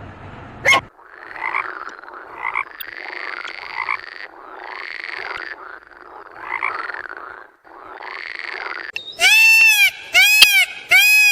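Animal calls: several seconds of repeated rasping, croak-like calls. From about nine seconds in, three loud, clear pitched calls follow, each under a second long.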